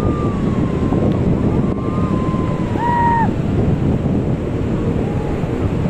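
Wind buffeting the microphone over the steady rush of breaking surf. High, drawn-out cries from people in the waves sound above it: one long call held for about two seconds at the start, a short rising-and-falling cry about three seconds in, and a brief one near the end.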